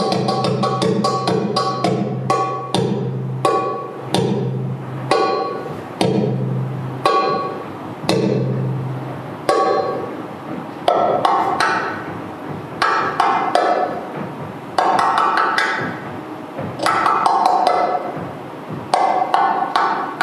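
Egyptian tabla (goblet drum) solo music for belly dance: sharp drum strikes in an uneven, changing rhythm, with a low held tone under the first half that stops about halfway through.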